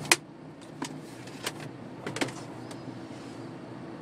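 A few sharp clicks and knocks, the loudest right at the start and three or four more in the first half, over a steady low hum in a truck cab.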